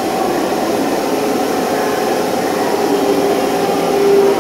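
Osaka Metro Sakaisuji Line subway train running, a steady rush of noise with a droning motor hum that grows stronger near the end.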